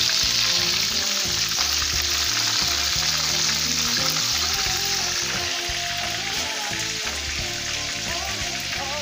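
Dalagang bukid (redbelly yellowtail fusilier) fish heads deep-frying in hot oil in a pan, a steady crackling sizzle that eases slightly toward the end. Soft background music plays underneath.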